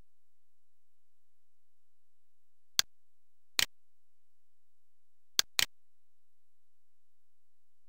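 Four short, sharp clicks while a computer is being operated, over otherwise quiet: one a little under three seconds in, another under a second later, then two close together about five and a half seconds in.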